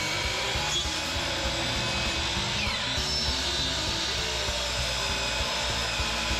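DeWalt miter saw running steadily, its blade cutting through a thick wooden slab.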